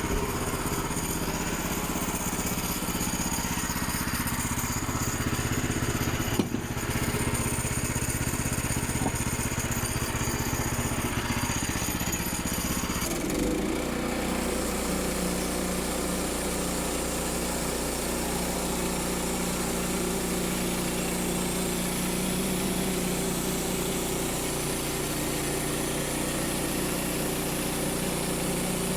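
Small gasoline engine of a Woodland Mills band sawmill running steadily. About 13 seconds in, its note changes and settles into a different steady hum.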